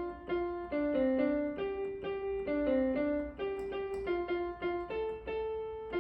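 Background music: a simple, gentle melody on piano or electric piano, single notes at an even pace of about two to three a second.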